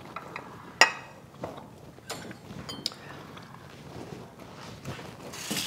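Metal fork or spoon clinking against small ceramic bowls: one sharp clink about a second in, then a few lighter taps. Near the end a running tap starts to hiss into the sink.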